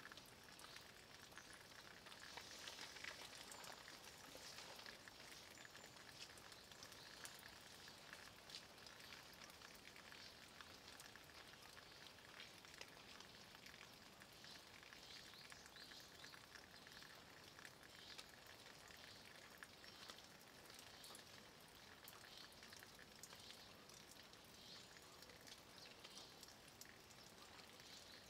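Light rain falling on a stone wall: a faint, steady hiss dotted with many small drop ticks.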